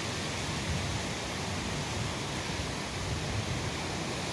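Steady outdoor wind noise: air moving through the trees beside the track, with gusts buffeting the microphone as a low, flickering rumble.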